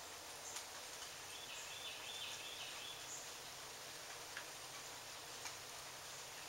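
A faint, wavering bird call lasting under two seconds, starting about a second in, over steady background hiss, with a few soft clicks scattered through.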